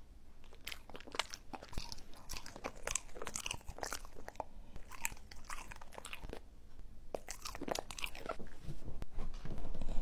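Dogs crunching and chewing dehydrated apple chips: a quick, irregular run of crisp crunches that gets louder near the end.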